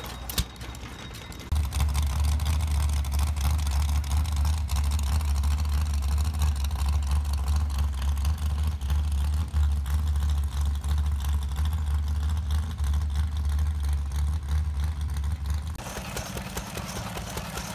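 Engine of a modified garden pulling tractor running steadily with a deep, strong low rumble. Near the end it gives way to a quieter, thinner mechanical sound.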